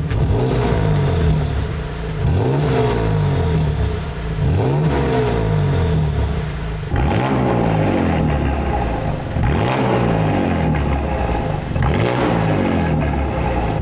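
A BMW's quad-exit exhaust as the engine is blipped about six times on a stationary car, each rev rising and falling. The exhaust valves are held fully closed at first; about halfway through they are opened by an aftermarket valve controller and the note turns fuller and louder.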